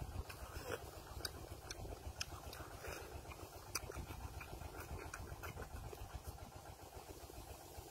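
Close-up eating sounds of a man eating crab and rice by hand: chewing with scattered sharp clicks and smacks, over a steady low rumble.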